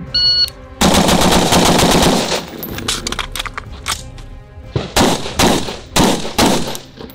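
A shot-timer beep, then an AR-style rifle firing a fast string of about ten shots in under two seconds. After a pause of about two seconds for a bolt-lock reload come two quick pairs of shots.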